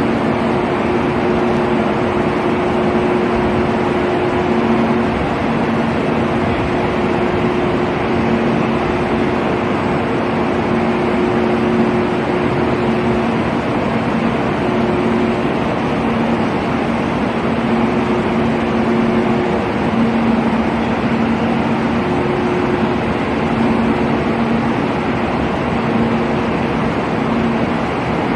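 Steady running noise of a Kyushu Shinkansen train heard from inside the cabin at speed. A low hum comes and goes over a continuous rushing noise.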